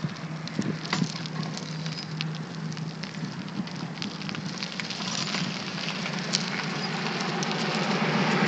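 Bicycle rolling over cracked asphalt: steady tyre and road noise with a scatter of small crackles and ticks, growing louder over the second half.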